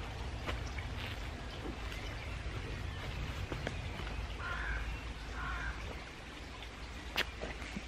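Quiet woodland ambience with a low steady rumble, faint bird calls about halfway through, and one sharp click near the end.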